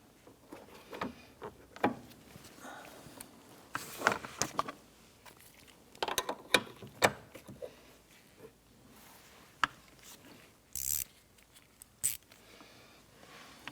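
Irregular metallic clicks and knocks of a spring compressor tool and a compressed door hinge coil spring being worked up into a truck's door hinge, with a short scrape near the end.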